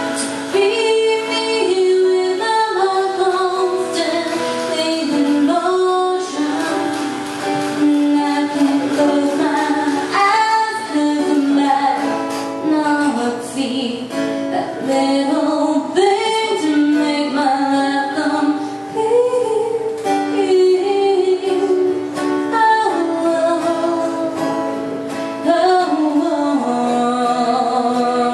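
A woman singing with her own acoustic guitar accompaniment, live.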